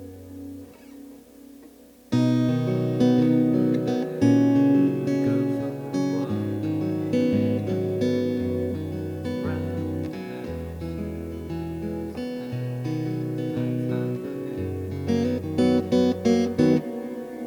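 Amplified acoustic guitar playing a melody over held bass notes. It starts about two seconds in after a low note has died away, ends with a few sharp strummed chords, then stops and leaves the notes ringing.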